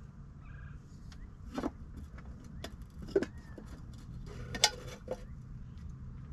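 Camp coffee gear being handled on a tailgate table: several scattered knocks and metallic clinks, the loudest and most ringing about four and a half seconds in.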